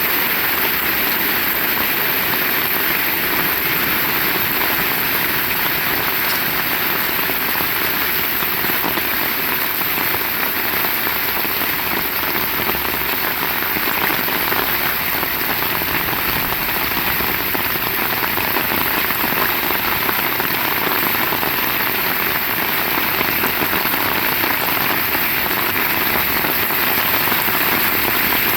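Heavy rain falling steadily, an even hiss and patter with no breaks.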